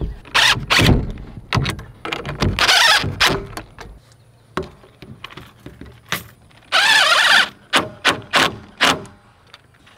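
DeWalt cordless drill driving screws through metal hanger strap to fix a PVC downspout pipe: two bursts under a second each, about two and a half and seven seconds in. Clicks and knocks of plastic pipe and fittings being handled fall in between.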